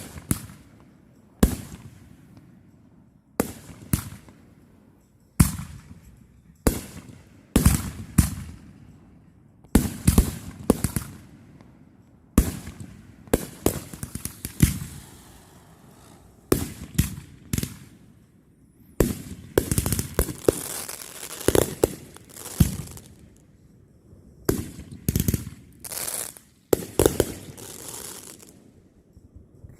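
Fireworks going off: a string of sharp bangs, each trailing off in crackling. They come every second or two at first, then more thickly and overlapping in the second half.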